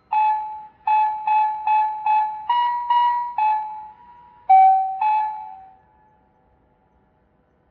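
Municipal disaster-prevention radio loudspeaker playing the 5 p.m. evening chime melody in electronic chime tones from TOA's new sound source. About ten bell-like notes, mostly repeated on one pitch and rising briefly in the middle. The phrase ends on a lower held note that fades away a little before six seconds in.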